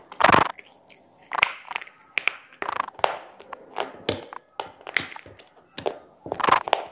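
Close-miked biting and chewing of square pieces of edible slate: a loud crunch as a piece is bitten off just after the start, then irregular sharp cracks and crunches from chewing, and another loud crunch near the end.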